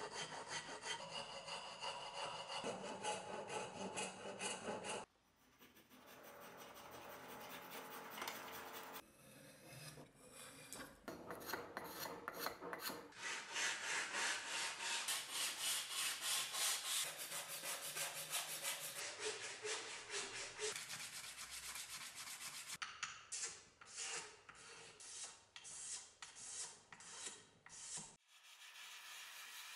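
Hand-shaping a birch axe handle with a file and sandpaper: repeated back-and-forth scraping and rubbing strokes on wood. The sound changes abruptly several times as the work is cut between short clips.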